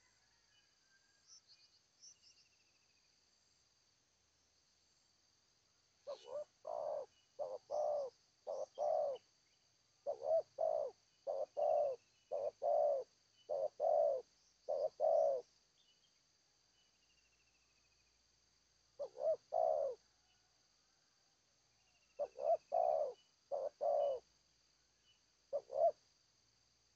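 Spotted dove (terkukur) cooing in repeated phrases: a long run of coos, then two shorter groups near the end. A steady high cricket trill continues behind.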